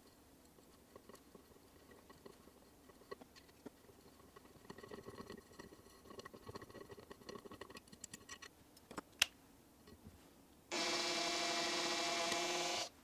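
A hand tap in a tap wrench cutting threads into a metal plate, with faint scraping and creaking as it turns, then a single sharp click. Near the end a drill runs for about two seconds with a steady whine, spinning a countersink bit in the tapped hole to chamfer it.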